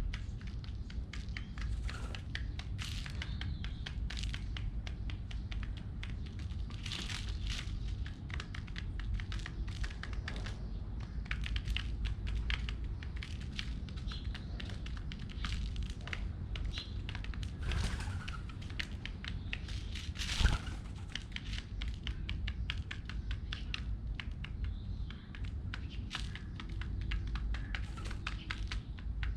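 Pigeons pecking at seeds on the ground: a rapid, irregular patter of small taps and clicks over a steady low rumble, with one louder knock about two-thirds through.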